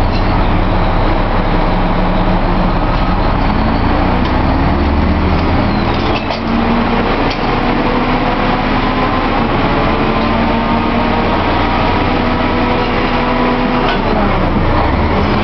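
Drilling rig floor machinery running loud and steady, its engine pitch climbing slowly in the first few seconds and falling away near the end as the load changes. A few sharp metal clanks from the drill pipe being handled at the rotary table cut through.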